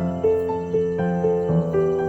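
Background music: a slow, gentle keyboard melody, with a new note sounding about every quarter to half second.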